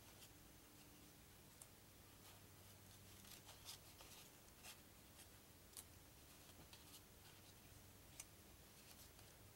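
Faint clicks and rustles of stiff cardboard trivia cards being slid off a deck and laid down, about ten soft ticks scattered through, over a faint steady low hum.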